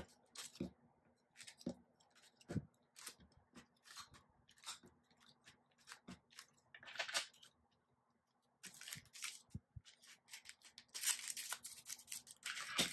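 Glossy photo cards being picked up off a table and stacked by hand: soft taps, slides and clicks of card against card and tabletop. Near the end comes a denser scraping rustle as the stack is squared up.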